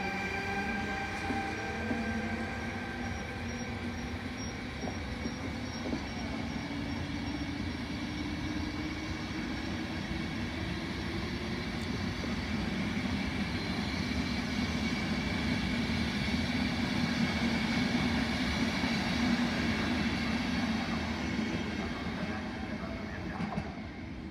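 Trenord regional passenger train running past at speed: a steady rumble of wheels rolling on the rails, with a high whine fading in the first few seconds. The rumble drops away near the end as the last coach goes by.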